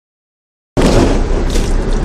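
Heavy rain and a low vehicle rumble heard from inside a vehicle, cutting in abruptly a little under a second in and then holding loud and steady.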